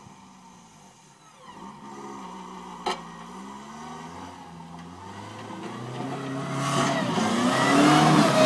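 Snow-plow vehicle's engine running, changing pitch as it is driven, then revving and growing much louder as it comes up close, with a rushing hiss as the plow blade pushes snow near the end. A single sharp click about three seconds in.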